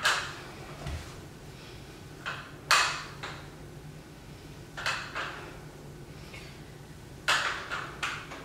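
Adjustable block-style dumbbells rattling and clacking with each front-raise rep, a short cluster of two or three clacks about every two and a half seconds.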